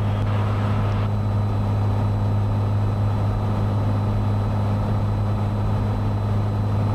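Cessna 182's engine and propeller drone steadily inside the cabin on final approach. A hiss stops about a second in.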